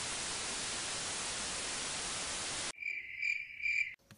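TV static sound effect: a steady hiss that cuts off abruptly about two and a half seconds in, followed by three short, high chirps.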